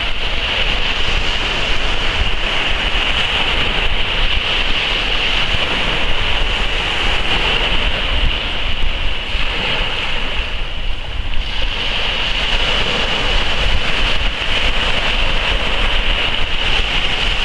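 Small waves breaking and washing up a sandy beach: a steady hiss of surf that eases briefly about two-thirds of the way through, with wind rumbling on the microphone.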